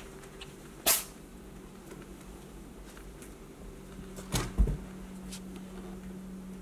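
A few sharp knocks and bumps: one about a second in and a small cluster around four and a half seconds, over a faint steady hum that comes in with the second cluster.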